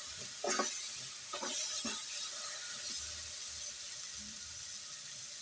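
A spatula scraping and stirring ground amla paste and spices in a hot pan, with a few scrapes in the first two seconds, over the steady hiss of the masala sizzling on low heat.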